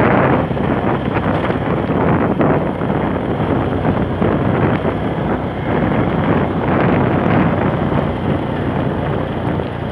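Wind rushing over the microphone while riding a motorcycle, with the motorcycle's engine running steadily underneath.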